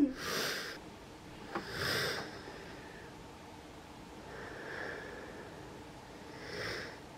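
Soft breaths and sniffs through the nose, four faint puffs a couple of seconds apart, with a light tap about one and a half seconds in.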